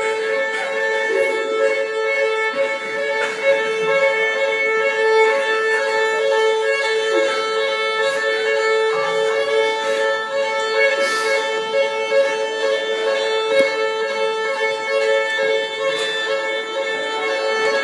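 Fire alarm sounding continuously: a loud, steady, unbroken electronic tone made of two close notes, without pauses.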